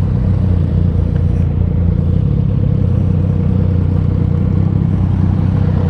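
Yamaha XSR900's inline-three engine running at low, steady revs while the bike rolls slowly.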